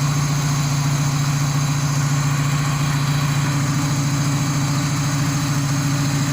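Car engine idling steadily with the air-conditioning compressor engaged, a constant low hum. The compressor runs on fresh oil without the growling (ngorok) it was serviced for.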